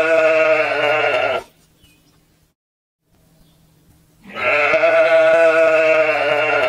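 Sheep bleating: a long, wavering bleat that ends about a second and a half in, then a second long bleat starting about four seconds in.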